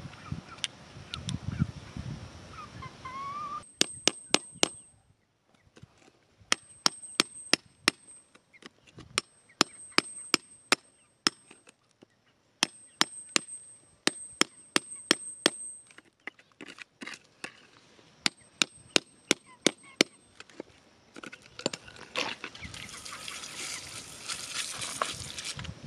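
Sharp ringing clicks of a hard tool striking stone, in five bursts of about five to ten quick taps, as stony soil is chipped away from a buried crystal. Near the end, a few seconds of hissing splash as water washes over the dug-out stone.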